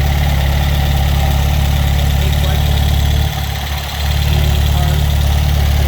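Freshly rebuilt Ford 1.7 V4 engine running steadily at idle on its first start after a complete rebuild, still without a water pump fitted. Its level dips briefly a little past halfway.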